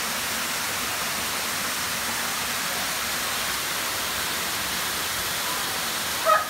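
Steady rush of a waterfall dropping through a narrow rock cleft into a pool. A brief pitched sound cuts in near the end.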